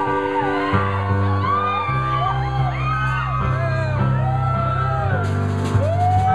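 A band playing live: a strummed electric guitar over low sustained bass notes that change about every second, with high sliding melody lines on top. A few sharp percussion hits come near the end.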